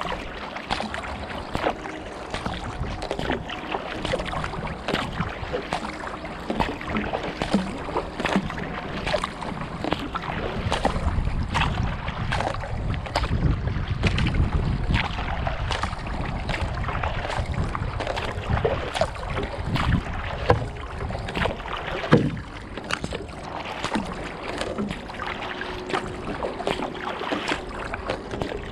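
Kayak being paddled: paddle blades dipping and splashing, with frequent small drips and splashes of water close by on the deck. There is a low wind rumble on the microphone in the middle.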